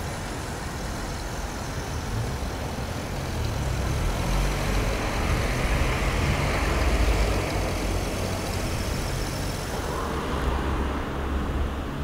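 Road traffic at a town intersection: cars driving past with engine and tyre noise. The noise swells to its loudest around the middle and then eases off.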